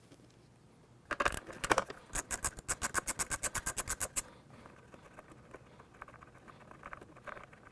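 Socket ratchet clicking in quick, regular strokes, about six clicks a second, as a 10 mm bolt is backed out. The clicking stops about four seconds in, and fainter ticking follows.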